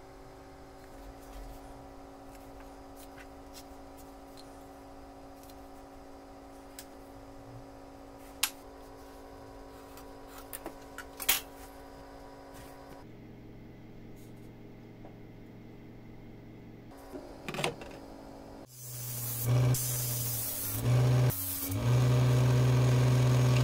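Wooden plane parts handled on a workbench, with a few light knocks and clicks. About 19 seconds in, an electric disc sander starts up and runs steadily with a strong low hum, much louder than what came before.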